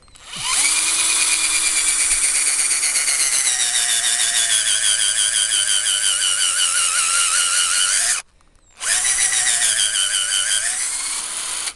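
Cordless drill/driver with a 10 mm spade bit boring into a maple trunk. The motor whines steadily for about eight seconds, its pitch slowly dropping as the bit bites into the wood. It stops briefly, then runs again for about three seconds.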